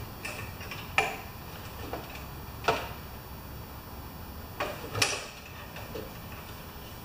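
Sharp, short metallic clicks and knocks from a control cable and its clamp being worked loose at the side of a Briggs & Stratton lawn mower engine. The three loudest come about a second in, near three seconds and about five seconds in.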